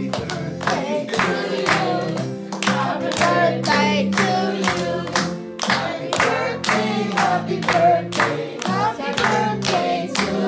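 A group clapping in time, about two claps a second, along with a birthday song being sung over music.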